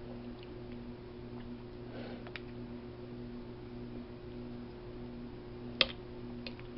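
Small clicks and taps of someone eating over a steady low hum, with one sharper click, like a utensil against a plate, a little before six seconds in.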